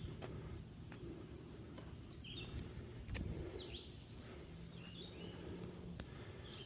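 A bird repeating short, sharp chirps about once a second, over a steady low rumble and a few faint clicks.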